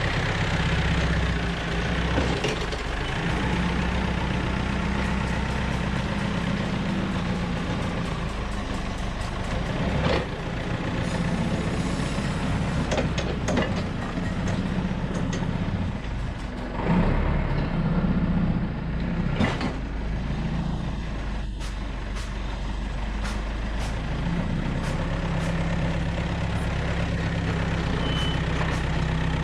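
Heavy machinery's engine running steadily, with scattered clanks and knocks over it.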